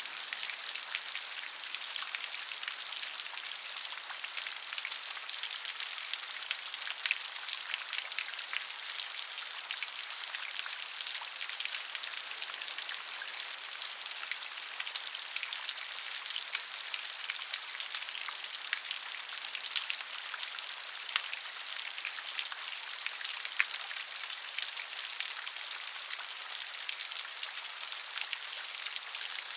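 Steady rain with many individual drops pattering on a surface, a dense even hiss.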